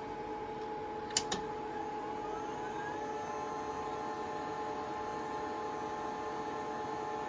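Sony HDCAM SR studio tape deck taking in a cassette: two sharp mechanical clicks about a second in, then a whine that rises in pitch as the head drum spins up and settles into a steady whir over the machines' constant hum.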